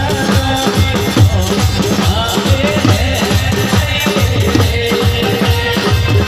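Gujarati devotional folk song for Meldi Maa (ramel), a man singing through a microphone over a steady driving drum beat with rattling percussion.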